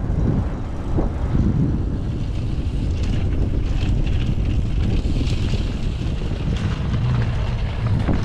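Wind buffeting the microphone, a loud steady low rumble, with a few short clicks and rattles over it.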